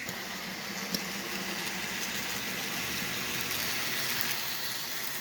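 Bachmann Spectrum N scale model locomotive running on its track: a steady whir of the small motor and wheels, with one sharp click about a second in.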